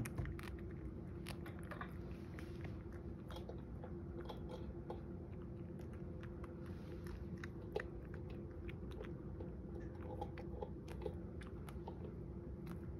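Cat chewing and crunching small dried sardines (niboshi): a run of irregular small crunches over a faint steady hum.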